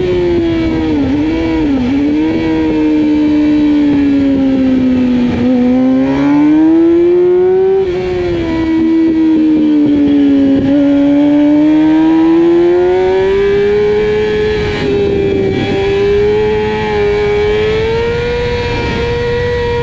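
2009 Yamaha YZF-R6's inline-four engine running hard, heard from the rider's seat. Its note sinks and climbs again and again with the throttle, with quick breaks in pitch at the gear changes.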